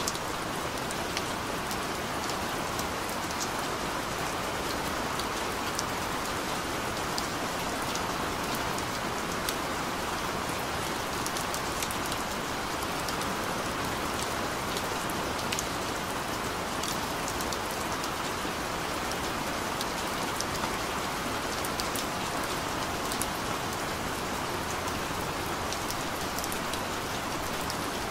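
Gentle, steady rain: an even hiss dotted with the small ticks of individual drops striking the surface.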